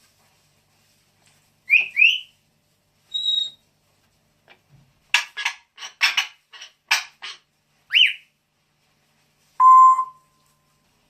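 A pet bird calling in short separate sounds: two quick rising chirps, a brief steady whistle, a run of about eight harsh squawks and another rising chirp. Near the end comes a short, loud, steady beep-like tone, the loudest sound here.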